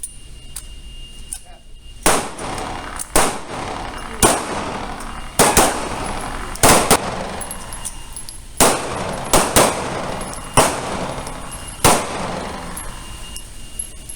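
Pistol shots from several shooters firing on command. About a dozen sharp cracks come at irregular spacing, some in quick pairs, each trailing off in reverberation.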